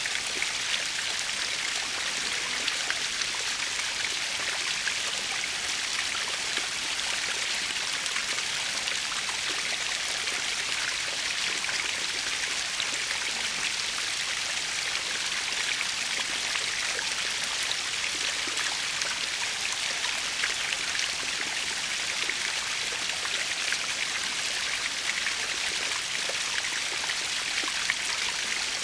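A natural waterfall splashing steadily: an even, high hiss of falling water with little low rumble, flecked with small splashes.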